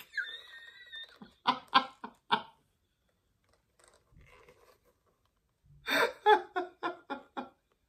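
A woman laughing: a short high-pitched squeal at the start, a quick run of laughs about a second in, then after a pause another run of laughter near the end.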